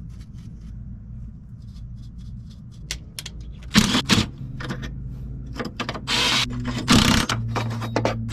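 Hand-tool work on car parts: scattered metal clicks and clinks, growing into louder rattling and scraping bursts about halfway through, over a steady low hum.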